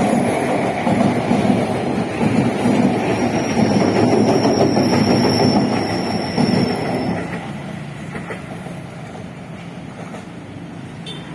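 Train passing on the rails: a loud rumble and clatter of wheels, with a thin high wheel squeal for a few seconds in the middle. The sound fades to a lower, steady level about seven seconds in as the train moves away.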